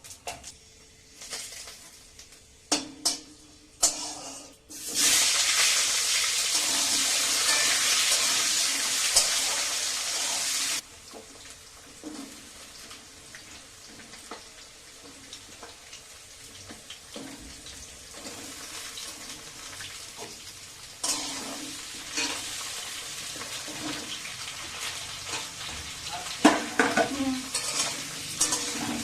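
Kitchen cooking sounds: utensils knock against a pan, then a loud rushing hiss runs for about six seconds and stops suddenly. A softer pan sizzle follows, with stirring and clatter of a spoon on the pan near the end.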